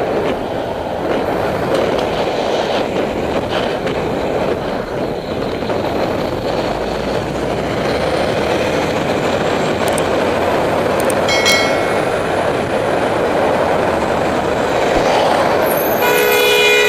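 Steady rushing wind and road noise of travel along a street, with wind on the microphone. A brief high squeal comes about eleven seconds in, and near the end a vehicle horn sounds a steady held note.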